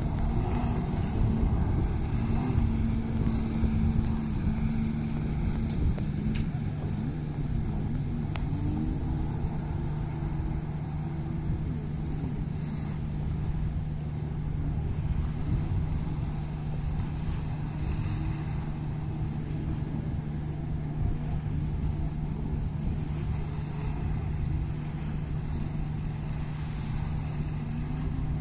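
Jet ski engines running, a steady drone whose pitch rises and falls as the riders throttle up and ease off.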